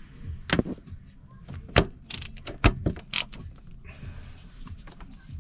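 Hand tool knocking and scraping at a fibreglassed-over chainplate bolt inside a sailboat's hull: a handful of irregular sharp clicks and knocks, the loudest near the middle.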